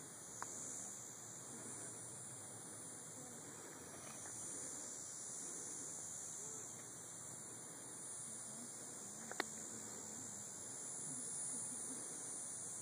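Faint steady high-pitched hiss over a low, even background noise, with one sharp click about nine seconds in.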